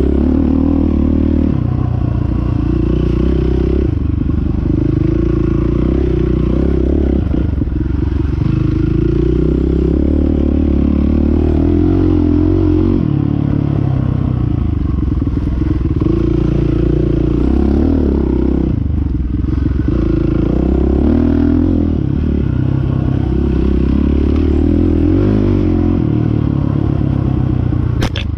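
Dirt bike engine ridden along a rough trail, loud and close, its revs rising and falling every couple of seconds as the throttle is opened and closed, with rattling from the bike. A sharp click near the end.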